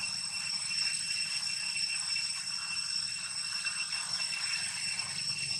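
Steady, high-pitched drone of insects, unbroken throughout, over a low, even background hum.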